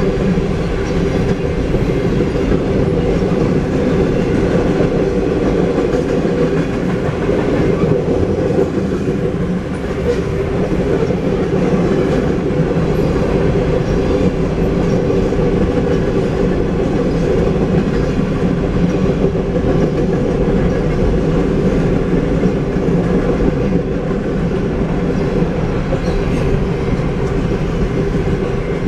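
Freight cars rolling past a grade crossing: a steady, loud running noise of steel wheels on the rails.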